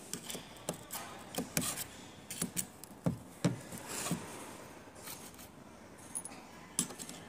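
Irregular metallic clicks and taps of steering box parts being handled and set down on a workbench during a rebuild, with two sharper knocks a little after three seconds in.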